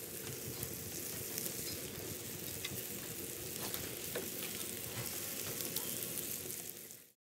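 Button mushrooms sizzling and frying in a cast-iron skillet over a wood fire while they are stirred and turned, with small pops and crackles through the steady sizzle. The sizzle stops abruptly near the end.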